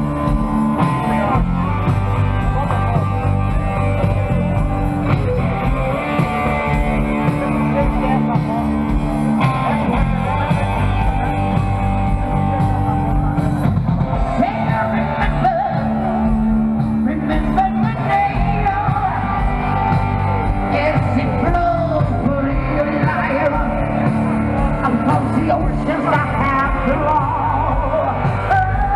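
Rock music with a singing voice over a steady instrumental backing.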